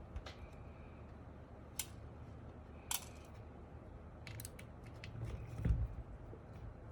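Screwdriver undoing the small screws that hold a mechanical keyboard's PCB to its plate: scattered sharp clicks and scrapes, a quick cluster of them a little past halfway, then a heavier knock of the board being handled.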